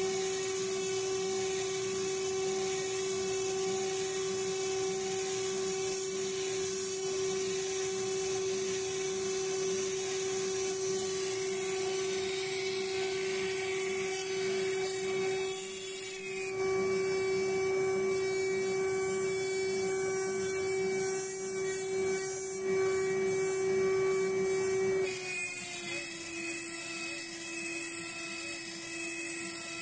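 CNC router cutting an aluminium amplifier top plate: very noisy, a steady tone from the spindle and drives over the hiss of a large dust collector and pumps. The tone steps slightly lower in pitch about 25 seconds in.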